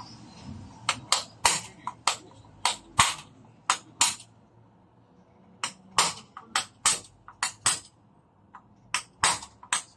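Sharp clicks and knocks in quick, irregular runs with short pauses, like metal parts and tools being handled during work on a brake booster.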